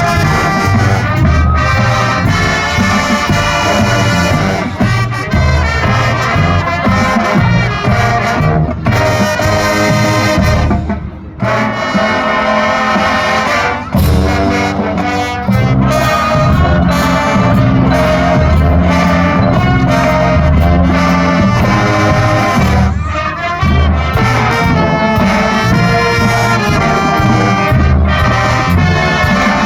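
Marching band playing, its brass carrying the tune, with one short break about a third of the way through.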